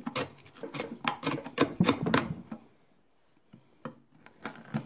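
Bench chisel paring and levering waste wood out of a half-lap joint cut at a knot: a quick run of sharp cracks and clicks as chips split away, a pause, then a few more clicks near the end.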